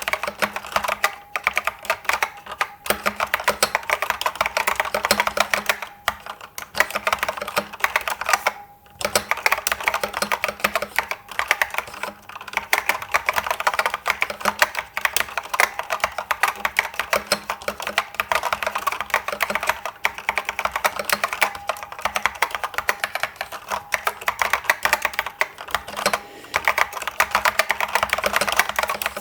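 IBM 6112884 'Pingmaster' keyboard with SKCC green Alps switches being typed on quickly and continuously, a dense run of key clicks with a brief pause just before 9 seconds in.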